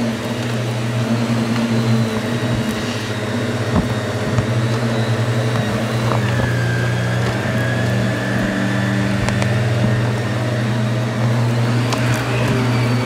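Upright bagless vacuum cleaner running steadily as it is pushed over carpet, a constant motor hum. A couple of short clicks sound about four seconds in.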